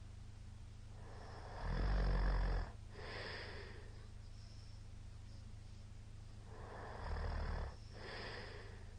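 A middle-aged man snoring loudly in his sleep: two low, rattling snores about five seconds apart, each followed by a softer, breathy breath.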